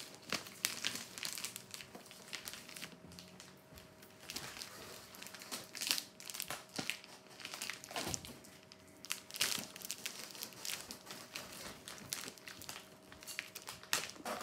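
Brown paper wrapping crinkling and tearing as it is pulled off a cardboard box: an irregular run of crackling rustles with sharper rips.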